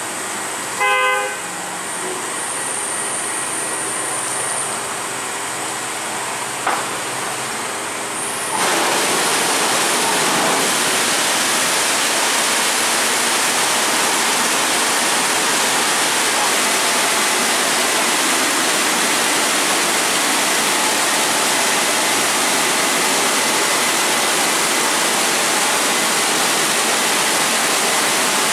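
A WashTec Combiwash rollover car wash gantry running with a steady machine hum, with a short horn-like tone about a second in. At about nine seconds a louder steady rush of water spraying over the car starts and continues.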